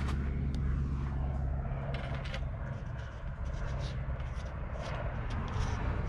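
Low engine rumble of a passing vehicle fading out over the first couple of seconds. Then a few light clicks and scrapes from BMX parts being handled on the frame.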